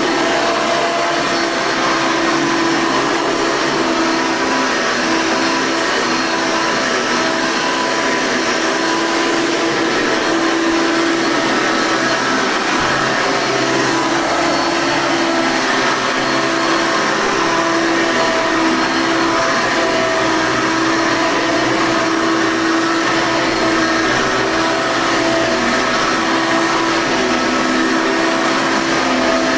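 Gray Hoover Legacy upright vacuum cleaner running steadily, its motor giving a constant hum and whine.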